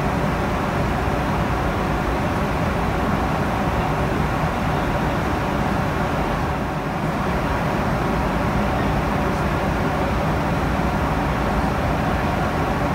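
Steady cabin noise inside a Rolls-Royce-powered Boeing 747-400 at cruise: the even rush of airflow and engines.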